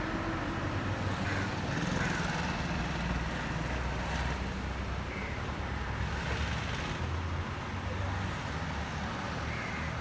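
Engine of a heavy machine running with a steady low rumble, with faint voices in the background.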